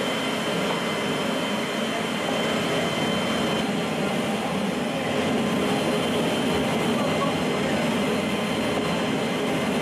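Steady noise of a C-17's four turbofan engines and rushing air heard inside the cargo hold, a constant loud drone with a faint high whine.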